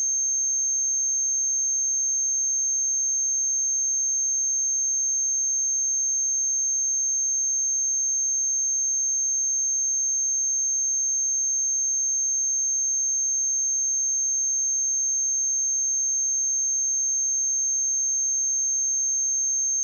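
A steady, unbroken 6366 Hz sine-wave test tone: a single high-pitched whistle-like pitch with no other sound.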